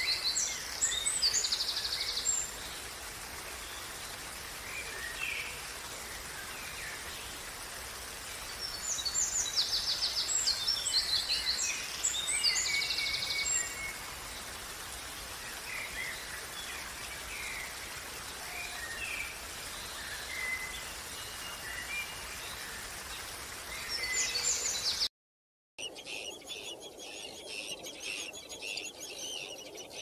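Small waterfall splashing steadily over rocks while songbirds sing: bursts of rapid high trills at the start, again about ten seconds in and briefly near the end, with scattered chirps between. Near the end the sound cuts out for a moment, then gives way to faint high bird calls.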